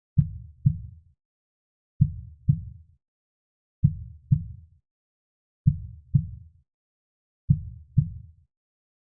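Slow heartbeat: five low lub-dub double thumps, one pair about every two seconds, with silence between the beats.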